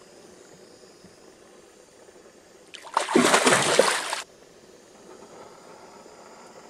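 A hooked pike thrashing at the water's surface beside a boat, one hard splash lasting about a second and a half, about three seconds in. Otherwise a faint steady background hiss.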